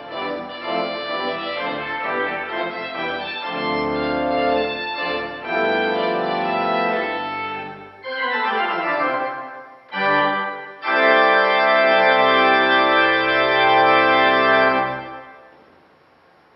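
Organ playing a majestic trumpet tune. It ends on a loud held final chord from about eleven seconds in, released about fifteen seconds in, with a short decay into quiet.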